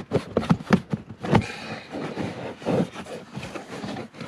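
Hands working loose plastic interior trim under a car's glovebox: a run of sharp clicks and knocks with rustling between them.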